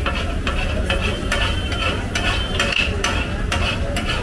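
Food frying and sizzling in a hot pan while a metal spatula stirs and scrapes it, giving irregular sharp metal clicks and scrapes, about two or three a second.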